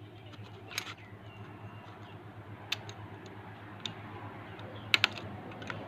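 Small sharp metal clicks and ticks from a pick and needle-nose pliers working a piston-pin circlip into its groove on a Yamaha Mio 125i piston, a clip that is hard to fit because it has no tab to grip. The clicks come singly and irregularly, the two loudest close together about five seconds in.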